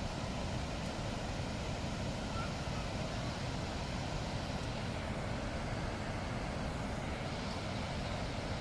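Steady rushing water, an even noise with a deep rumble underneath, unbroken throughout.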